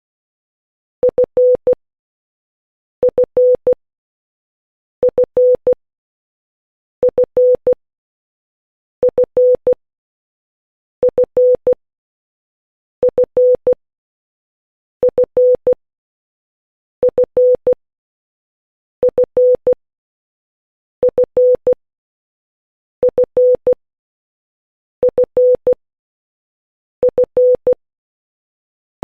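Morse code beeps on one steady pitch keying dit-dit-dah-dit (・・－・), the Korean letter ㄴ (nieun), repeated about every two seconds. The same pattern is the letter F in international Morse.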